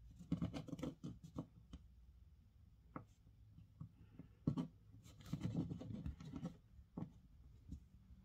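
Fingers handling a tiny rubber food-shaped eraser, a miniature strawberry cake: faint rubbing, scratching and soft clicks, in two flurries, one near the start and one past the middle, with single clicks between.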